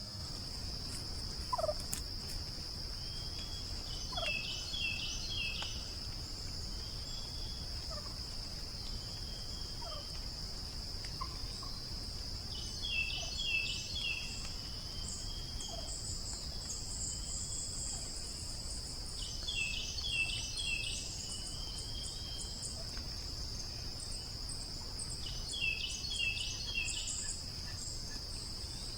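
Outdoor insect chorus: a steady high-pitched drone with a louder, pulsing chirp call about every six to seven seconds, four times.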